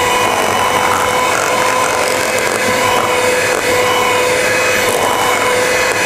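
Handheld electric mixer running at a steady speed, its twin beaters whisking thick egg-and-sugar sponge batter in a stainless steel bowl to blend in the melted butter, with a steady motor whine.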